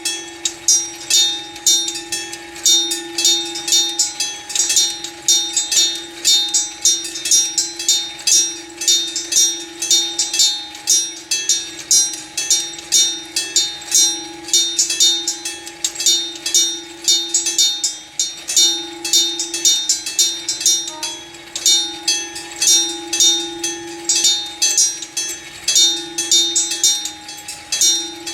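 Electric bell of a Japanese railway level crossing ringing without a break, about two to three strikes a second, sounding the warning for an approaching train.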